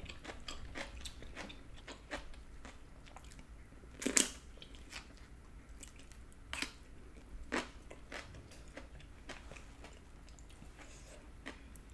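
Close-up eating sounds: chewing and crunching of food, with a metal spoon and chopsticks clicking against stainless-steel bowls in scattered sharp clicks. The loudest clink comes about four seconds in.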